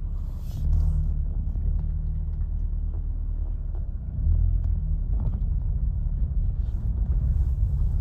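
A vehicle engine idling, a steady low rumble.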